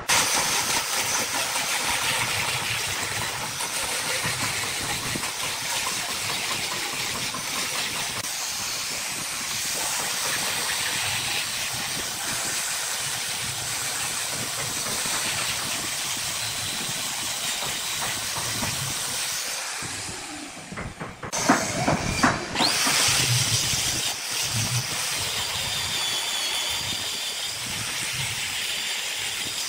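Angle grinder with a hook-and-loop sanding disc running against the face of a wooden disc: a steady motor whine under the hiss of the abrasive on the wood. About two-thirds of the way through there is a brief break with a few knocks, then the sanding goes on.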